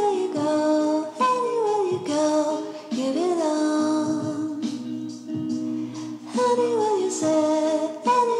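Background music with a sung melody that glides between notes over a steady accompaniment.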